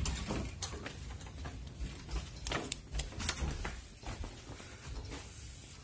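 Quiet indoor handling sounds: a door handle worked near the start, then scattered light clicks and knocks over a faint low rumble.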